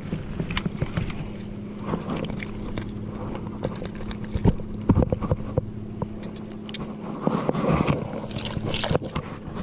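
A small fish being swung in on a fishing line and handled, with scattered clicks and knocks and a burst of rustling in shoreline water plants near the end. A steady low motor hum runs underneath.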